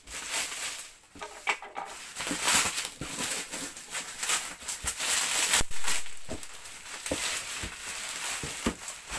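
Bubble wrap crinkling and rustling as it is pulled and peeled away from a cardboard box, with scattered sharp crackles and a few light knocks of the box against the table.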